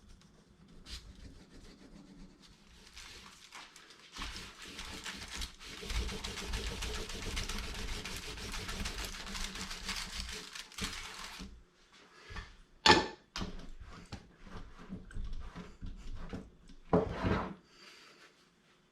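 Rubbing on a leather pad, working beeswax leather sealer in and out of the stitching: a steady scratchy rubbing that lasts about seven seconds, then a sharp knock and one more short burst of rubbing near the end.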